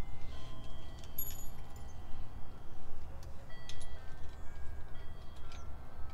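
Small metal clinks and rattles, with short ringing tones, scattered irregularly: drill bits being handled as the bit in the drill is changed for a bigger one. A steady low rumble underneath.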